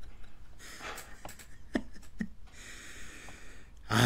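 Quiet breathing and exhales through the nose, with a few faint clicks. A short, louder voiced snort comes near the end.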